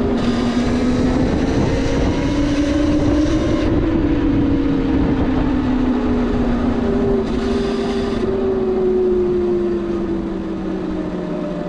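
Electric motorbike's motor whining as it rides, its pitch rising a little in the first few seconds and then slowly falling as it slows, over a steady rush of wind and road noise.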